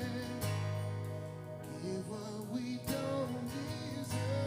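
A worship song heard through a personal in-ear monitor mix, with strummed acoustic guitar up front and a lead vocal melody over a band.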